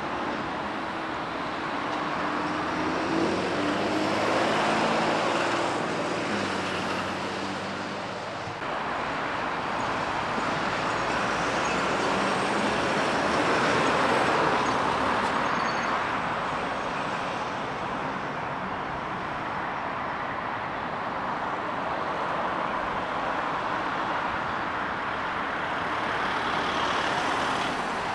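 A fire engine's diesel engine pulling round, its pitch stepping up and down. After that, heavy diesel lorries drive past one after another, and the engine and tyre noise swells as each one goes by.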